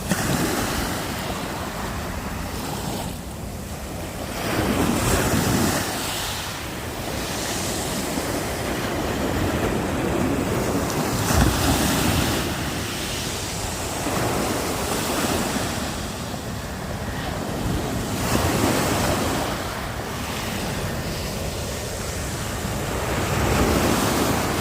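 Black Sea surf: waves washing onto the shore, swelling and falling back every few seconds, with wind buffeting the microphone.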